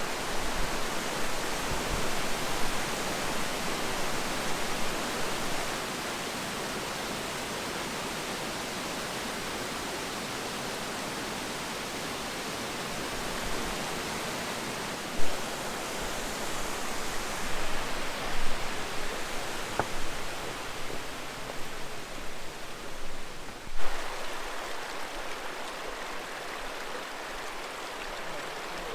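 Steady rush of creek water, an even hiss that steps down in level a few times, with two brief knocks partway through.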